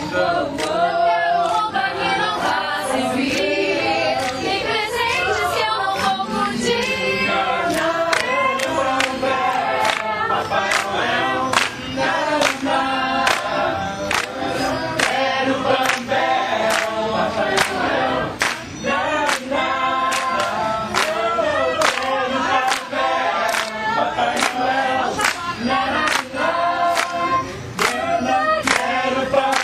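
A choir singing a Christmas jingle in Portuguese, over a steady beat of sharp taps about two a second.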